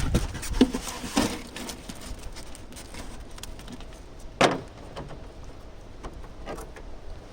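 Scattered knocks and scraping from foam insulation board being handled and cut around beehive boxes, with one louder scrape about four and a half seconds in.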